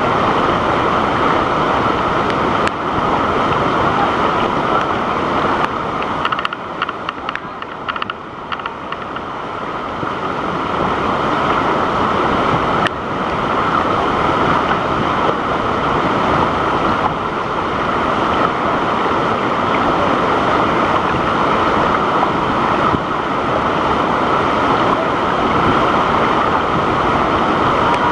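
Waterfall: a loud, steady rush of falling water, dipping a little about seven seconds in before building again.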